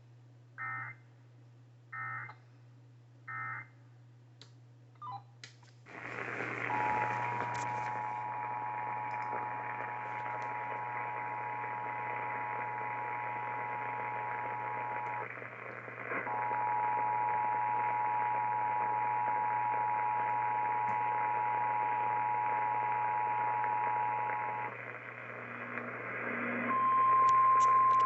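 Emergency Alert System tones over a radio receiver. First come three short bursts of the digital SAME header about a second apart. Then radio hiss rises, and the two-tone EAS attention signal sounds for about eight seconds, breaks briefly and resumes for another eight. Near the end a single steady warning-alarm tone begins over the hiss.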